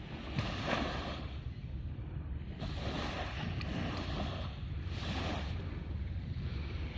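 Wind rumbling on the microphone, with surges of water hiss from small waves washing against the shore every couple of seconds.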